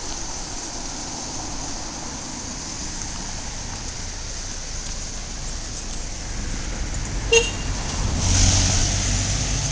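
Steady outdoor street noise, then near the end a car drives past, its engine hum and tyre noise swelling up. A single short sharp click sounds just before the car passes.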